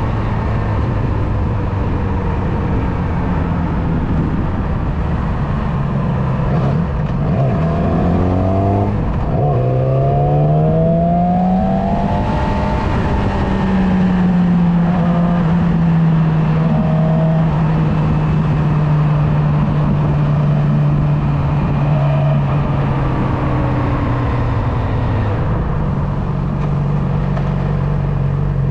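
Motorcycle engine running under way over a steady rushing noise. About eight seconds in the engine note drops, then climbs as it accelerates, holds a steady cruise, and falls again near the end.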